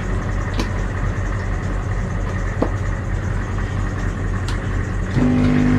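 Small water pump in an RV fresh-water system running with a steady, noisy drone. It is covered with a shirt inside an insulated box, and its vibration carries into the hoses. A few light clicks sound over the drone, and a stronger steady hum sets in about five seconds in.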